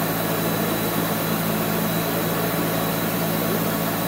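Spray booth ventilation running steadily: a constant mechanical hum with a faint high whine above it.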